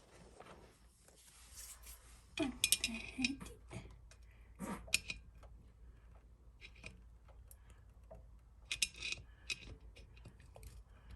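Light clicks and clatters of hand tools and small metal parts being handled while parts are unfastened from a refrigerator, in short clusters a few seconds apart.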